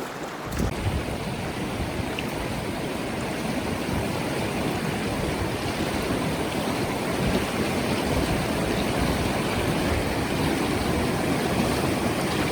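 Steady rush of river water, with a few small knocks in the first second.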